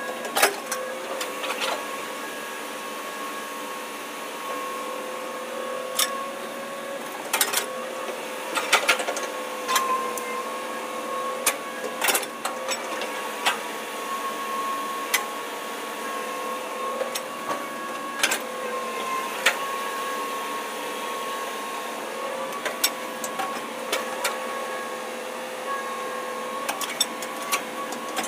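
Hitachi hydraulic excavator running with a steady whine that sags briefly a few times under load. Sharp knocks and clanks come every second or two as the bucket digs into mud and soil.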